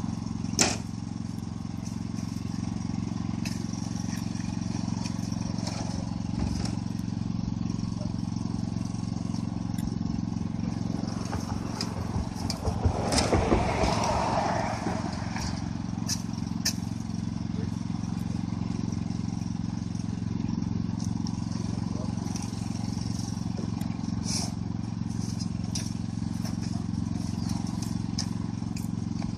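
An engine idling steadily, with a vehicle passing on the highway and swelling up about twelve to fifteen seconds in, and a few sharp knocks.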